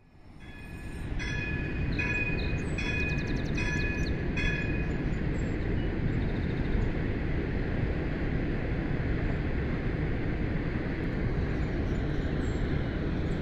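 Train horn sounding a rapid series of about six short blasts, stopping about five seconds in. Steady wind rumble on the microphone throughout.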